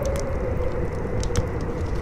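Howling wind, one moaning tone that wavers slowly in pitch over a low rumble, with a fire crackling: a few sharp pops, two near the start and two more past the middle.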